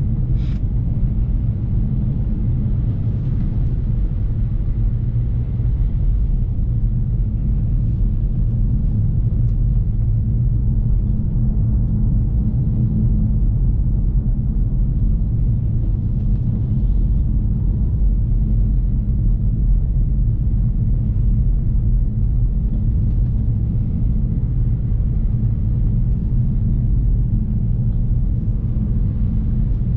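BMW F30 335i's N55 turbocharged inline-six driving at a steady, even engine note through deep snow, with a low drone of engine and tyre rumble.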